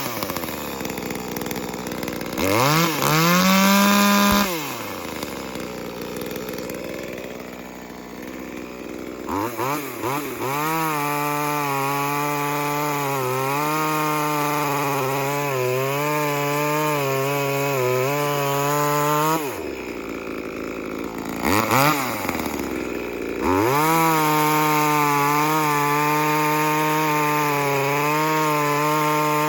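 Small two-stroke chainsaw, a brand-new clone of the Echo 2511, not yet broken in: it revs up hard twice at the start, drops to a quieter idle, then runs for a long stretch held at steady high speed with the pitch dipping and wavering, typical of cutting through solid 6-inch oak. About halfway it falls back, revs once more, and settles into a second long wavering stretch of cutting.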